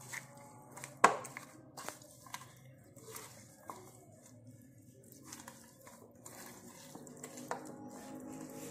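Hands mixing chicken bones in a soy sauce, vinegar and chili sauce marinade in a ceramic bowl: soft wet squelching with scattered clicks and knocks against the bowl, the sharpest about a second in.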